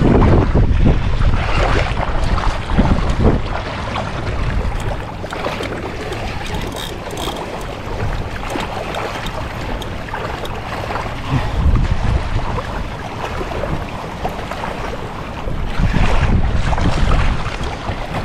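Wind buffeting the microphone, with small waves lapping in shallow water. It comes in gusts that swell and ease, heaviest in the low rumble.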